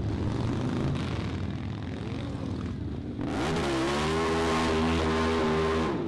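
Motorcycle engine running at low revs. About three seconds in it is revved up and held at a steady high pitch for a couple of seconds, then drops off right at the end.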